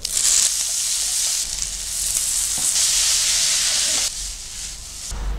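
Yakisoba noodles sizzling loudly in hot oil in a frying pan, then stir-fried with pork belly and cabbage. The sizzle drops off about four seconds in.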